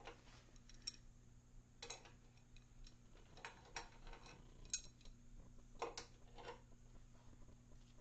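Faint, irregular clicks of a ratcheting torque wrench being worked hard to tighten a threaded hydraulic fitting, about eight clicks spread unevenly, over a faint steady hum.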